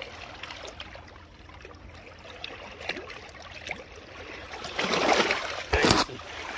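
Shallow water trickling and lapping, then a landing net dunked and swished in it, with loud splashing and sloshing about five seconds in and a louder, briefer splash just before the end.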